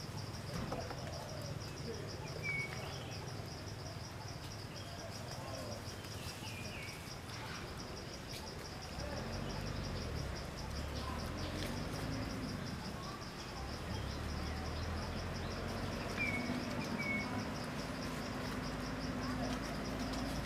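Insects chirping in a steady, high, rapidly pulsing trill, with a few short bird chirps about two and a half seconds in and again near the end, over a low rumble.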